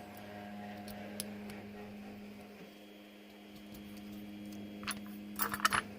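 A steady low hum, then a quick cluster of small sharp clicks near the end as the lock's plug is slid out and its pins tip out onto a pinning tray.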